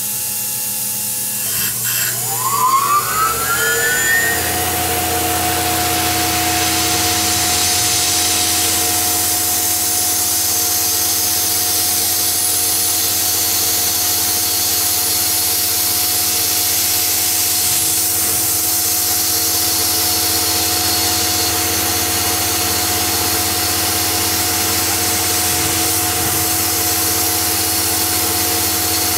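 Tormach CNC mill spindle spinning up with a rising whine about two seconds in, then running steadily at speed. A small end mill takes light finishing cuts in aluminium between heat-sink fins, over a steady hiss.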